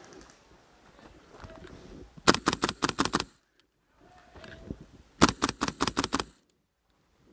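Airsoft gun firing two rapid bursts of about half a dozen shots each, roughly three seconds apart, each shot a sharp crack.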